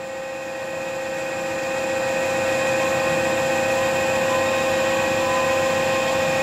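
Ganesh CTL-618EVS precision lathe running under its electronic variable-speed drive, with the power carriage feed engaged: a steady whine of the drive and gearing. It grows a little louder over the first two seconds, then holds steady.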